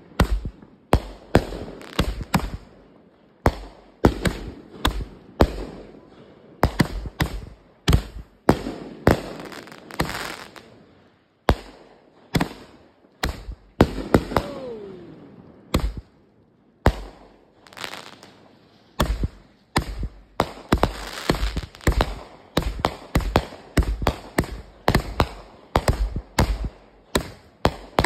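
World Class Fireworks "Honey Badger Don't Care" multi-shot firework going off: a rapid, irregular string of sharp bangs, several a second, with hissing between the shots and a falling whistle about halfway through.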